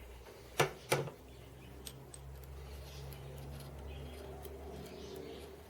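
Two sharp clicks less than a second in, then a low steady hum with faint scattered ticks: small parts handled on a garage workbench.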